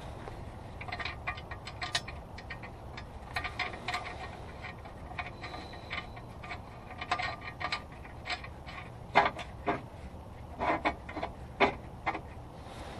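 Irregular light metallic clicks and taps of bolts and hardware being handled and started by hand under a car, with a few sharper clinks about nine to twelve seconds in.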